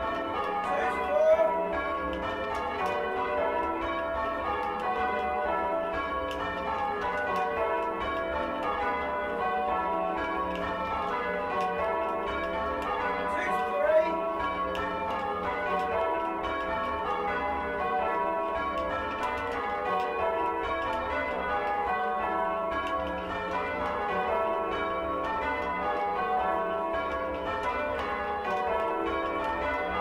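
A ring of six church bells (16 cwt, tenor in E) rung full circle in steady change ringing, heard from the ringing chamber, the strikes following one another in an even, continuous rhythm; the tenor bell is oddstruck. Two brief louder rising sounds stand out, about a second in and about halfway through.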